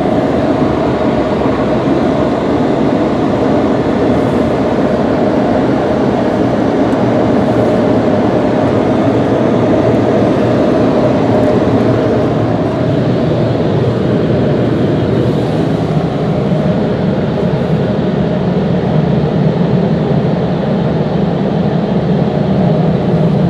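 PDQ LaserWash 4000 car wash air dryers blowing on the car: a loud, steady rush of air, heard from inside the car.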